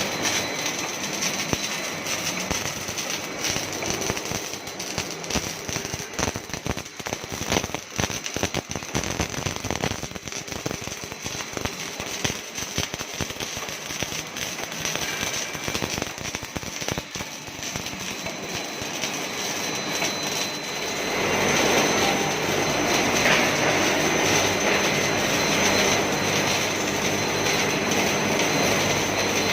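MIG welding arc crackling and sputtering as an automatic welding machine welds an idler wheel. About two-thirds of the way in it turns louder and steadier, more of a hiss than a crackle.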